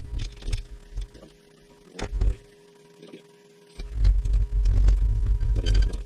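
Low rumbling thumps and a couple of sharp knocks from parts being handled at the bench, with a faint steady hum underneath. The thumping is heaviest in the second half.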